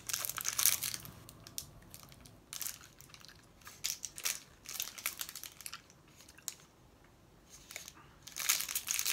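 A snack bar's shiny wrapper crinkling as it is opened by hand, in scattered crackles with a quieter stretch, then a denser run of crinkling near the end.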